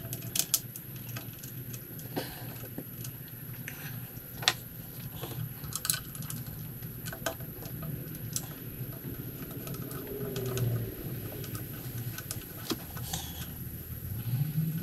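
Scattered light clicks and metallic taps of bolts and a hand tool as the new thermostat housing is bolted onto the engine, over a low steady hum.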